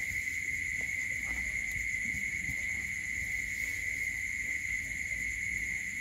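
Steady, unbroken high-pitched drone of night insects such as crickets, over a faint low rumble.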